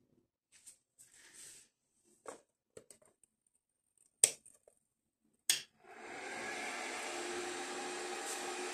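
A galvo laser marking machine being switched on: faint handling rustles, two sharp switch clicks, then about six seconds in its laser source and power supply start a steady buzzing hum with a faint even tone, the machine powered up and running.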